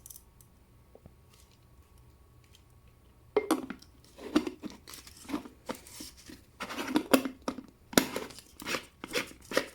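Packaging crinkling and tearing in a run of irregular bursts as an item is unwrapped, starting about three seconds in.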